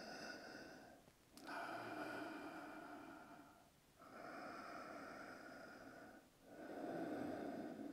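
A person breathing slowly and deeply, each breath about two seconds long with short pauses between, as part of a calming exercise for anxiety.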